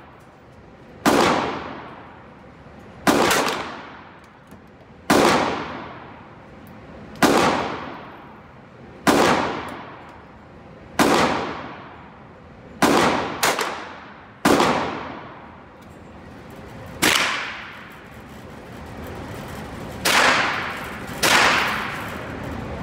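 Gunshots on an indoor range, about a dozen at roughly two-second intervals, each sharp crack ringing off in the room's echo. Among them are .22 LR rounds fired from a single-shot 12 gauge shotgun through a sub-caliber adapter.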